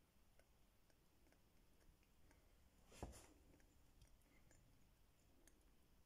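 Near silence, with faint scattered clicks and one brief thump about three seconds in.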